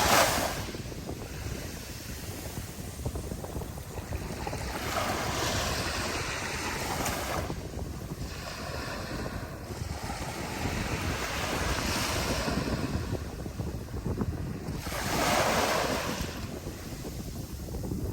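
Ocean surf breaking on the shore, the wash swelling and fading every few seconds, loudest right at the start and again about three-quarters of the way through. Wind rumbles steadily on the microphone underneath.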